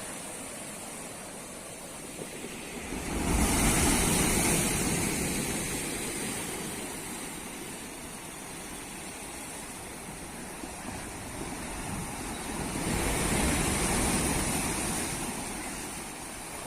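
Rough sea surf washing onto the beach in strong wind, a steady rush with two louder surges, one about three seconds in and another near the end.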